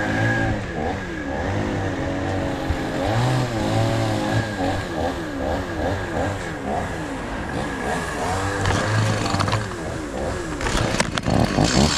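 Stihl two-stroke chainsaw running, its engine revving up and down over and over. A few sharp clatters come near the end.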